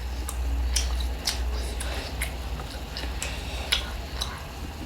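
A person chewing food close to the microphone, with scattered wet mouth clicks and smacks, over a steady low hum.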